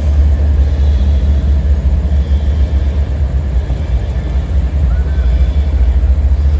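Empty CSX coal train rolling past, a steady low rumble.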